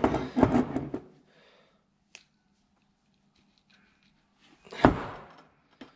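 Metal parts of a Nissan Patrol brake caliper being handled on a steel workbench as the slide pin and its rubber boot are worked out by hand. There is about a second of scraping and clinking, a faint click about two seconds in, and a sharper knock near five seconds.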